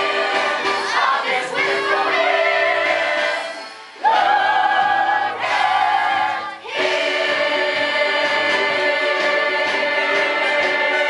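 Musical-theatre ensemble singing a show tune in chorus over accompaniment. The voices break off briefly about four seconds in and again near six and a half seconds, then hold a long sustained chord.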